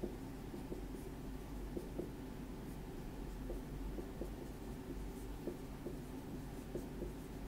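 Dry-erase marker writing on a whiteboard: faint short strokes and taps at an irregular pace.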